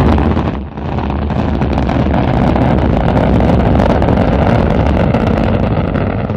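Rocket engine roar sound effect: starts abruptly with a loud burst, dips briefly under a second in, then runs on as a steady, deep rumbling roar.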